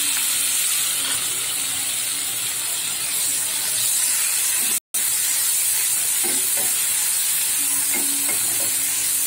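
Chopped onions and freshly added diced tomatoes sizzling in hot oil in a nonstick kadhai, stirred with a wooden spatula that knocks lightly against the pan. The sizzle is steady and cuts out for a moment about five seconds in.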